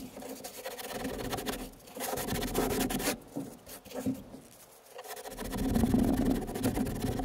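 Paper towel scrubbing the plastic deck of a kayak in quick back-and-forth strokes, wiping it down with denatured alcohol; the rubbing comes in three spells with short pauses between.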